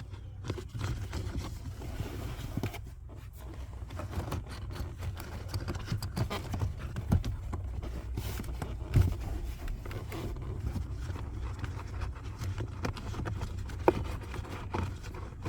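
A new cabin air filter being pushed by hand into its plastic housing: irregular scraping, rustling and light plastic knocks, over a steady low hum.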